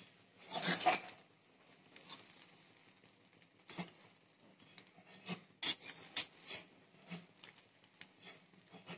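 Metal spoon stirring and scraping cooked khichuri rice in a metal pan, a string of short scrapes and light clinks, with louder ones just under a second in and around six seconds in.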